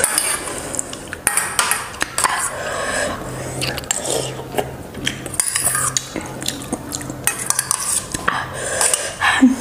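Steel spoon clinking and scraping against a stainless steel bowl and plate while instant noodles are scooped up, in many short, irregular clicks, with close mouth sounds of eating noodles.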